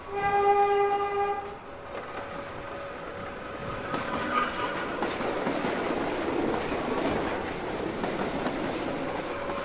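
A train horn sounds one long, steady note, then the noise of a moving train builds up about four seconds in and carries on.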